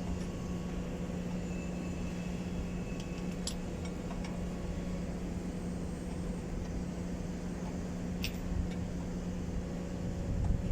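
Steady low mechanical hum of a machine running, with a couple of light metallic clinks.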